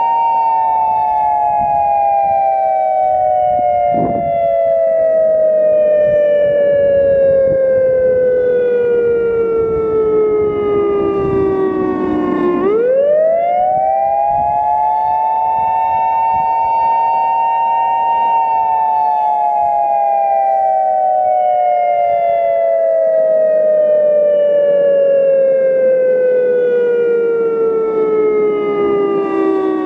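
Federal Signal EOWS 1212 prototype siren sounding the attack signal, two close tones together: the pitch slowly sinks for about twelve seconds, climbs quickly back up, holds for a few seconds, then sinks slowly again.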